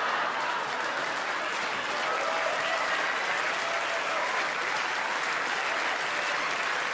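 Large audience applauding steadily, with laughter mixed in.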